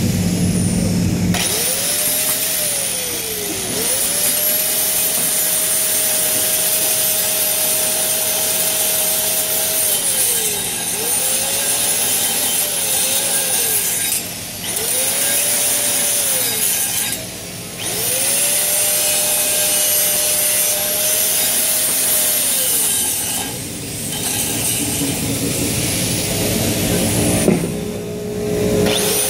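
Angle grinder grinding steel, its motor whine repeatedly sagging in pitch and recovering as it is worked against the metal, with a few brief letups between passes.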